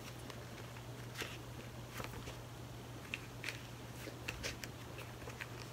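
Faint, scattered crinkles and light taps of a paper planner in a clear plastic wrap being handled and turned over, over a steady low hum.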